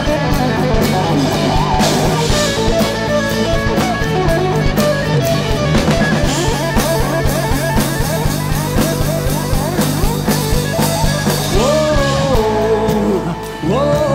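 Instrumental rock music: guitar over a drum kit, playing without a break.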